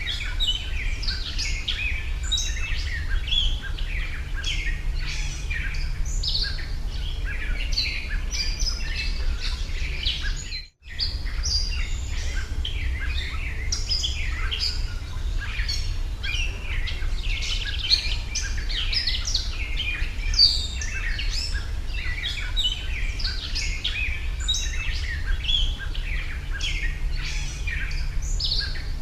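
A dense chorus of many small birds chirping over a steady low rumble; the sound cuts out completely for a moment about 11 seconds in, then carries on.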